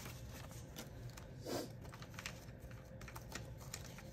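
Soft rustling and light clicking of paper banknotes being handled and pulled from a clear acrylic cash tray, with one brief louder sound about a second and a half in.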